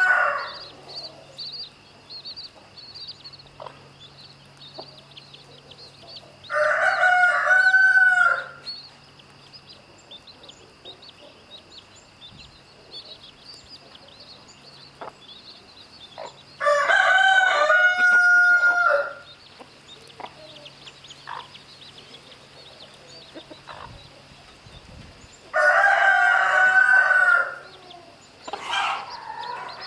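Rooster crowing again and again: one crow ends just as the sound begins, then three more full crows of about two seconds each come roughly nine seconds apart, with a shorter call near the end. A faint high chirping runs steadily underneath.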